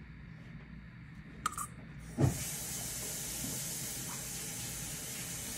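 A knock about two seconds in, then a steady, even hiss.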